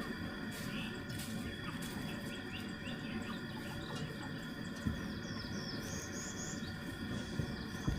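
Outdoor farm ambience: small birds chirping in short, high, quick series a few times, over a steady high insect drone and low rumbling handling noise.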